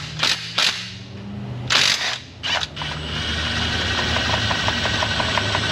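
A few tool knocks, then about three seconds in a power ratchet starts running, a steady hiss with fast, even clicking as it spins a bolt out.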